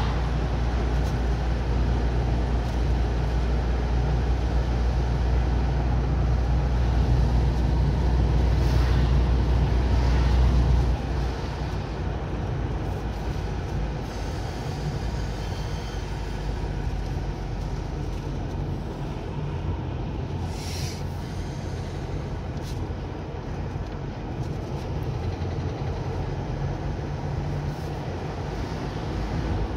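Car cabin noise while driving: steady engine and tyre rumble, heavy for about the first eleven seconds, then suddenly dropping to a lighter hum. A couple of brief hisses pass in the middle.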